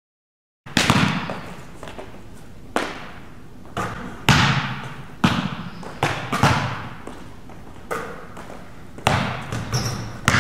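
A basketball thudding repeatedly on the gym floor and hoop, about ten irregular impacts, each echoing in the hall, starting just under a second in.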